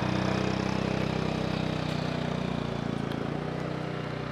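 A motor engine running steadily with a low hum, slowly fading away.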